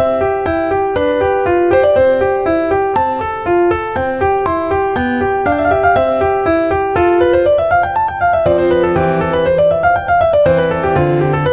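Background piano music: a quick melody of short notes, with rising and falling runs in the second half.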